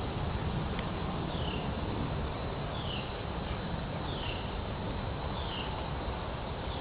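A bird repeating a short, falling high call about every second and a half, over a steady low rush of outdoor background noise.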